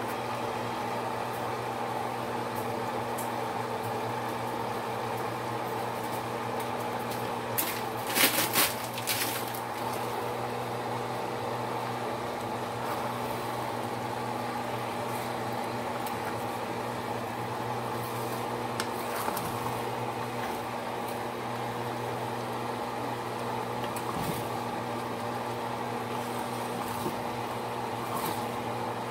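Steady electric motor hum with a pot of yellow rice simmering on the stove. A short clatter comes about eight seconds in.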